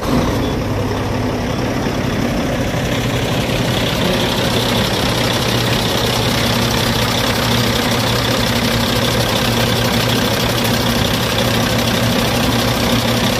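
Caterpillar diesel engine of a heavy tow truck running at a steady idle. The truck is having problems that the owner sets out to fix by replacing a fuel filter.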